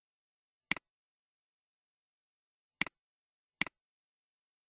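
Three sharp computer mouse clicks, each a quick press-and-release double tick, about a second in and twice near the end, as the cursor works through survey answers.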